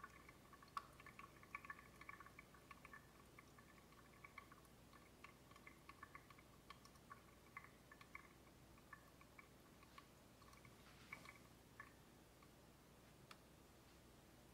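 Coffee dripping from a Mr. Clever dripper's paper filter into the coffee already in a glass server, a run of faint, quick plinks that grow sparse and die away as the drawdown finishes and the coffee bed drains dry.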